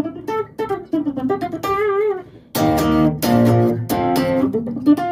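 Electric guitar played with a pick: quick single notes, one held note with vibrato about two seconds in, then louder, fuller picked chords from about halfway.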